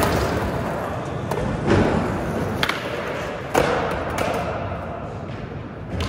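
Skateboard knocking and clacking on a concrete curb and floor, echoing through a large hall: four hard knocks spread over the first four seconds, with rolling wheels between them.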